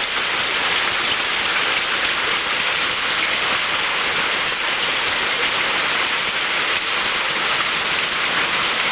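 Heavy hailstorm: hailstones and rain pelting down in a dense, steady hiss.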